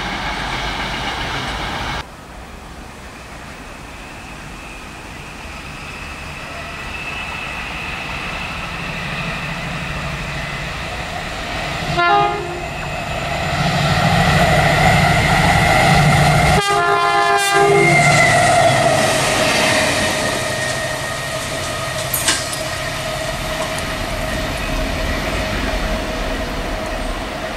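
Diesel freight locomotive passing through a station, its engine and wheels growing louder as it approaches. It sounds its horn twice: a short toot about twelve seconds in and a longer blast about five seconds later.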